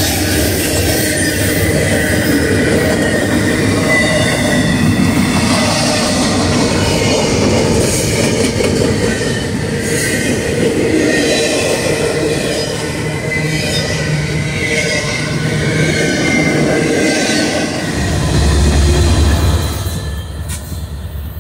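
Double-stack container freight train rolling past close by: a steady rumble and clatter of wheels on rail, with high wheel squeal over it. Near the end a trailing diesel locomotive passes with a deep engine rumble, and the sound fades as the train moves away.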